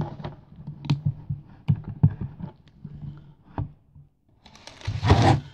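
Small packaged craft items (fabric bundles, ribbon and notions) being handled on a table: scattered light clicks and taps, with a louder rustle near the end.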